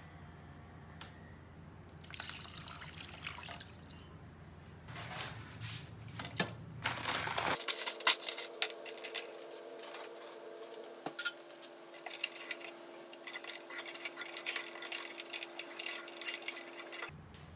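Ice water poured into a saucepan of cooked tapioca pearls. About halfway through, ice cubes clink and the water sloshes as a spoon stirs them, with sharp clicks of ice against the pan.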